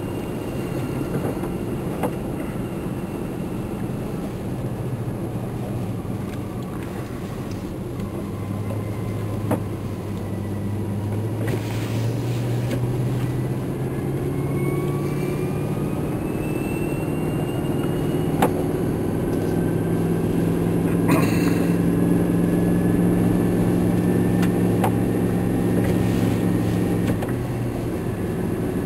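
Vehicle engine running at driving speed, heard from inside the cab, its pitch rising as it speeds up about midway and holding higher afterwards, with a few sharp clicks over it.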